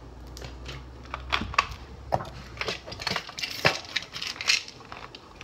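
Plastic soda bottle crackling and knocking as it is handled and flipped, a string of sharp clicks and knocks over a few seconds.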